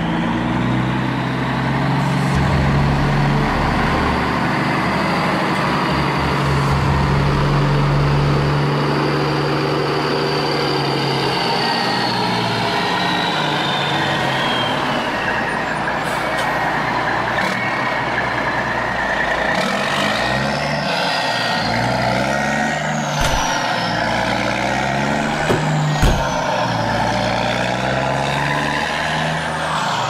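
A truck-like engine running steadily, its pitch stepping and gliding up and down, with two sharp knocks in the last third.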